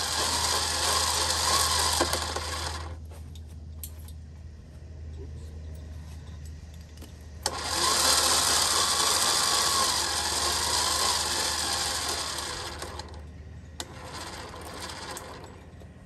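A 5,000 lb electric winch motor running twice, each run about five seconds, a whirring whine with a wavering pitch. The second run starts about seven and a half seconds in.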